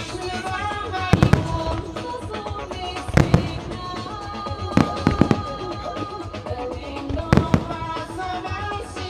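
Aerial firework shells bursting in quick clusters of two or three bangs, about every two seconds, over music playing along with a music-synchronised starmine barrage.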